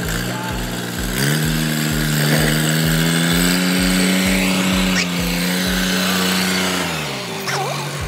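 Ford farm tractor's diesel engine pulling a loaded trailer; it revs up about a second in, holds a steady pitch, then drops back toward idle near the end.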